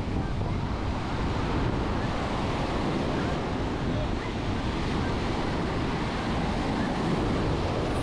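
Ocean surf washing onto a sandy beach, with wind rumbling on the microphone; a steady wash with no distinct events.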